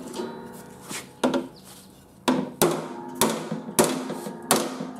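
Hammer striking the sheet-steel mower deck about six times, each blow ringing briefly like struck metal, the blows coming faster in the second half. The hammering works the deck metal at a rusted-through corner.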